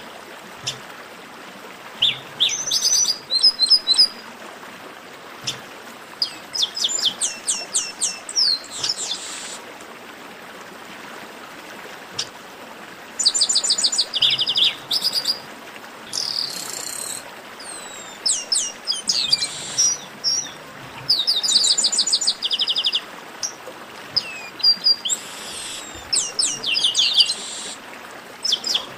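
Chestnut-capped blackbird song: repeated phrases of rapid, high, down-slurred notes, each phrase lasting a second or two with short pauses between, over a faint steady hiss.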